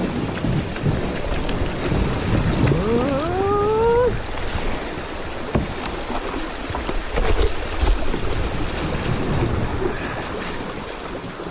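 River water swishing and splashing around a kayak, with wind buffeting the microphone and a few short knocks. A brief rising pitched call, like a voice, comes about a third of the way in.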